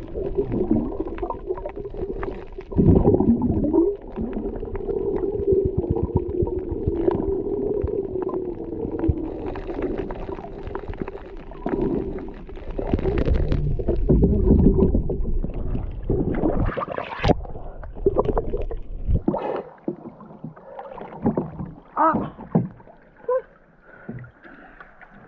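Muffled underwater sound picked up by a submerged camera: water rumble and bubbling with occasional knocks. About three-quarters of the way through the camera comes out of the water and the sound turns to short splashes of water beside a boat.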